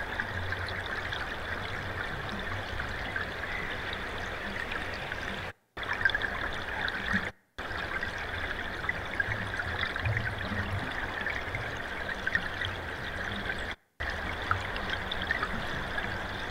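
Thaw sonification: a steady river-flow soundscape with small high tinkles that stand for the cold spell. It cuts out briefly three times.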